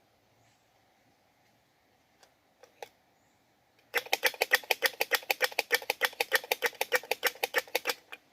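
Tree squirrel calling with a rapid, even chatter of sharp clucks, about ten a second, for about four seconds, after a few faint clicks; the call is described as a squirrel calling for a mate.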